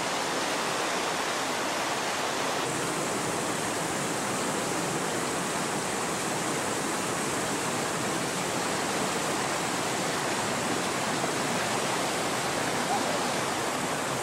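Whitewater river rapids rushing, a steady, unbroken rush of water.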